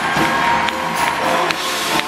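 Live band music recorded from the audience, with the crowd cheering over it.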